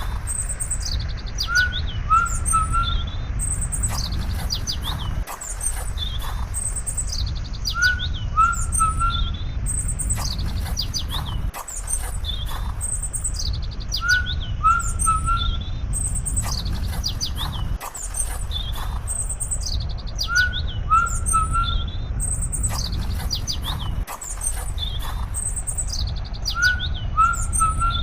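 Birds chirping and singing over a steady low rumble. The same few seconds of calls repeat exactly about every six seconds, each time after a brief dropout, like a looped birdsong track.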